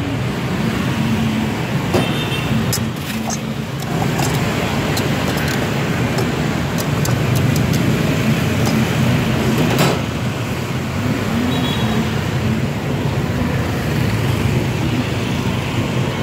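Steady noise of motorbike and car traffic on a busy city street, with a few sharp light clinks along the way.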